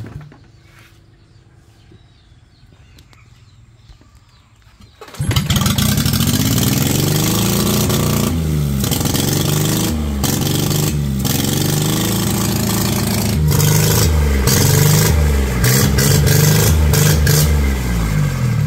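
An engine cuts in suddenly about five seconds in and runs loudly, its speed rising and falling over and over.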